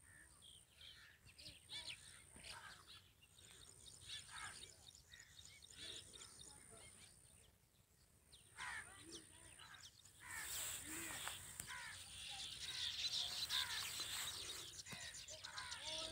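Small birds chirping and chattering, many short, quick calls overlapping. The chatter grows denser and louder about two-thirds of the way through.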